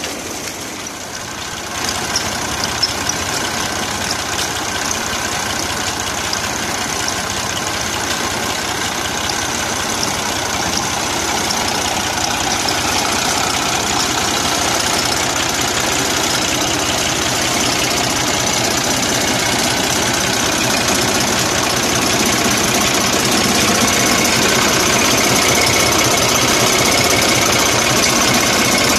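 Massey Ferguson 240 tractor's three-cylinder diesel engine running steadily under load, driving a tube-well water pump by belt. It grows gradually louder toward the end.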